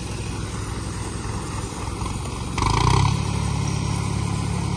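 Diesel tractor engine pulling a loaded grain trolley: it runs steadily, then revs up about two and a half seconds in with a brief loud burst and settles into a louder, steady run.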